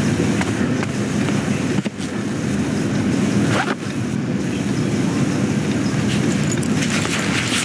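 Steady mechanical rumble of machinery, typical of a baggage conveyor system running, with a cluster of light rattles and clicks near the end.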